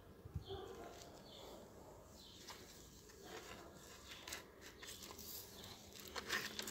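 Faint scattered rustling and crunching of hands working soil around a seedling in a plastic nursery bag, with a sharper click about half a second in and a quick run of ticks near the end.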